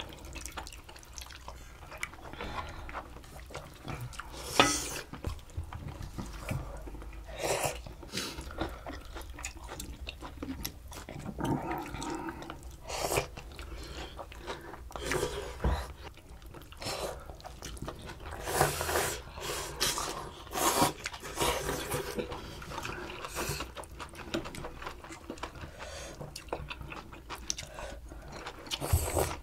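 Mukbang eating sounds: slurping and sipping pollack stew broth, chewing, and utensils clicking against bowls and a stainless pot, in irregular short bursts with occasional sharp clicks.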